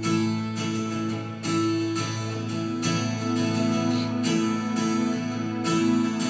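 Worship band playing an instrumental passage between sung sections: strummed acoustic guitar over sustained chords, with a strum about every second or so.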